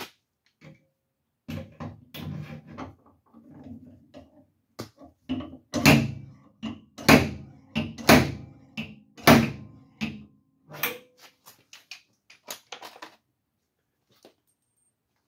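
A series of knocks and thuds, the loudest four about a second apart in the middle.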